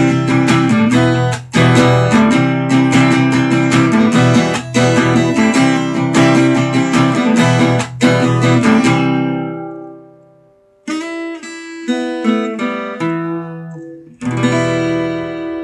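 Acoustic guitar strummed in steady chords that ring down about nine seconds in. After a short pause come a few picked notes, then one last strummed chord left to ring out.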